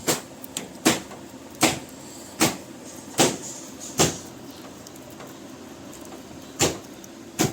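Repeated sharp metal strokes from a hand tool working on a stiff part, about one every three-quarters of a second, pausing for about two seconds midway before two more.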